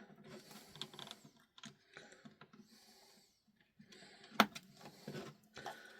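Faint plastic clicks and rattles of hands handling a Sony ICF-7600D radio while loading rechargeable batteries into its battery compartment. One sharp click about four and a half seconds in.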